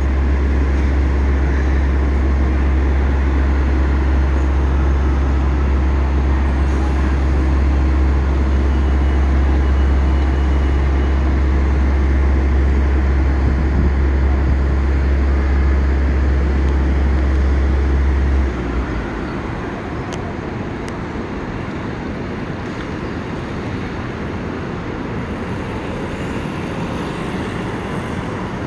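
City street traffic noise, with a loud, steady low hum that cuts off suddenly about two-thirds of the way in.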